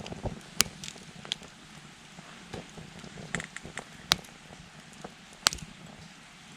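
Wood fire in a Coleman Fire Disk crackling, with scattered sharp pops from the burning wood over a soft steady hiss. Three pops stand out as louder: one early, then two in the second half.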